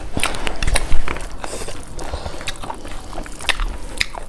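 Close-miked eating by hand: wet squishing of rice being mixed with curry by fingers, with chewing and mouth clicks, and a louder thump about a second in.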